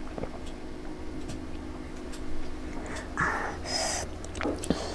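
Close-miked drinking from a glass: faint mouth clicks and swallows, then a breathy rush of air a little over three seconds in.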